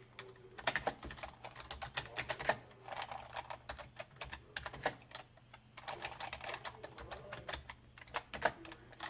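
Typing on a PS/2 computer keyboard: keys clicking in quick runs, with a short pause a little past halfway.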